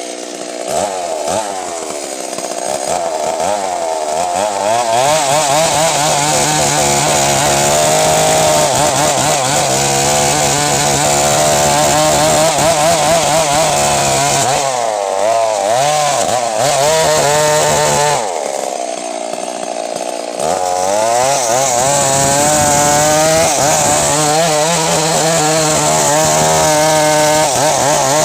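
Stihl MS 382 two-stroke chainsaw running at high revs, its pitch wavering as it cuts wood. The revs drop back briefly twice past the middle, then pick up again.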